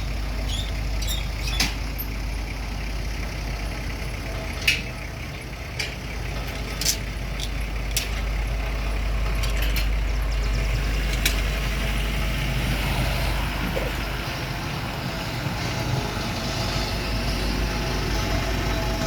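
Road roller's diesel engine running steadily with a deep low rumble. Several sharp clicks or knocks sound in the first half.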